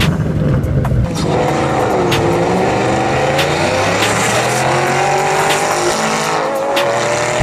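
Ford Shelby GT500's supercharged V8 exhaust. It changes about a second in to the engine pulling hard under acceleration, its note climbing slowly, with some tyre squeal.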